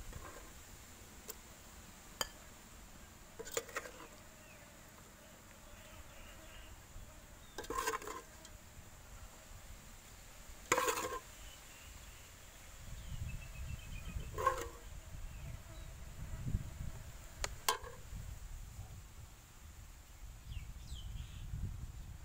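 Metal spoon knocking and clinking against an aluminium cooking pot, about six separate knocks a few seconds apart, each with a short ring. A steady high-pitched whine runs underneath.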